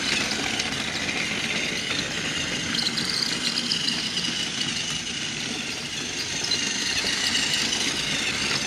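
Battery-operated Thomas & Friends toy trains running on plastic track: a steady whir of their small electric motors, with the wheels running over the track.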